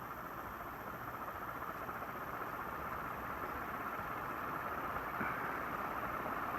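48-inch DEMCO industrial ceiling fan with aluminum blades running on high speed, a steady rush of moving air and motor noise that grows slowly louder as the fan comes up to speed.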